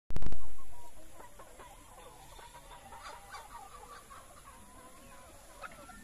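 A flock of free-range Rhode Island Red and local chickens clucking, with many short overlapping calls. A loud low thump at the very start fades over about a second.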